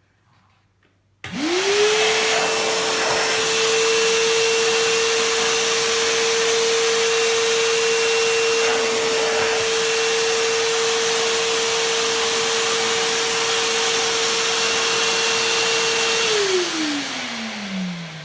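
Stanley FatMax 51733 1600 W wet/dry vacuum switched on about a second in, its motor whine climbing quickly to a steady pitch over a loud rush of air. Near the end it is switched off and the whine falls away as the motor winds down.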